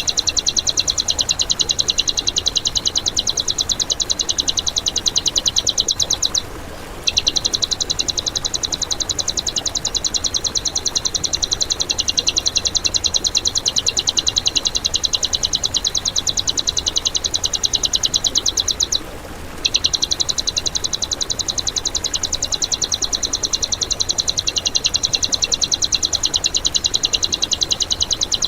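Recorded songbird call, a fast, continuous rattle of evenly repeated high-pitched chirps, broken by two short pauses, about a quarter of the way in and about two-thirds in. This is masteran song material, the rough, powerful 'tembakan' phrases played to train caged songbirds.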